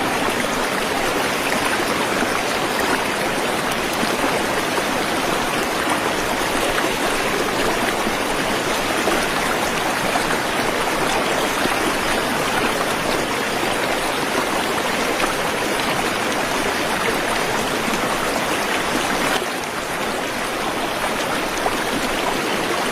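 Waterfall water rushing in a steady, even hiss with no breaks, dropping slightly in level near the end.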